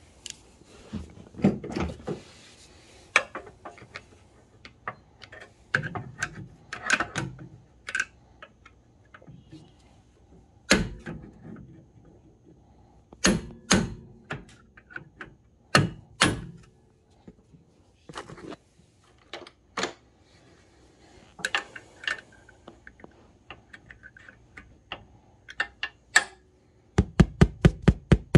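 Metal hand tools knocking, clunking and scraping against the snowmobile engine while a seized carburetor mounting nut is worked loose. Near the end comes a quick, even run of taps.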